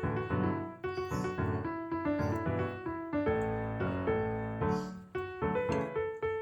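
Background music: a gentle piano melody, notes struck at a steady pace.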